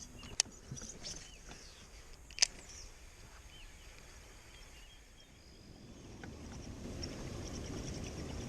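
Quiet lakeside ambience with faint, rapidly repeated high-pitched chirping. Two sharp clicks sound about two seconds apart, the second the loudest, and a low rushing noise builds from about halfway through.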